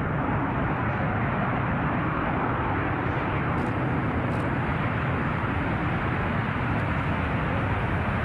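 Steady, even jet roar from the four turbofan engines of a B-2 Spirit bomber taking off.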